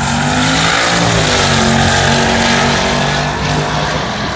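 Turbocharged LS1 V8 of a Holden Commodore drag car accelerating hard down the strip. The engine pitch dips about a second in, like a gear change, then climbs again.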